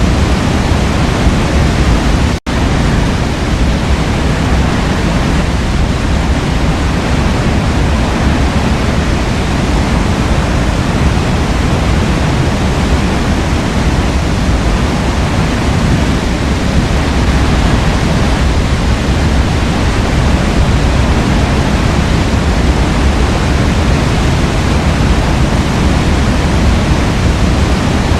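Forest waterfall: water falling in a loud, even rush. The sound cuts out for an instant about two and a half seconds in.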